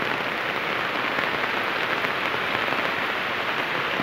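Steady heavy rain falling on a wet paved street, an even, unbroken hiss.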